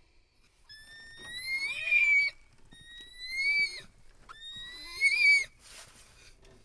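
An animal giving three long, high-pitched calls in a row, each rising slightly in pitch before breaking off.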